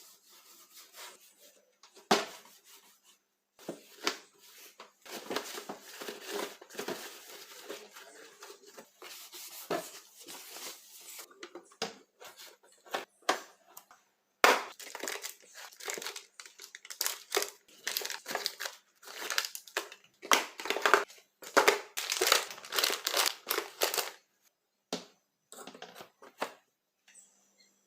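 Hands handling groceries and packaging: plastic crinkling and crushing, with irregular clicks and knocks as items are set down, and a few short pauses.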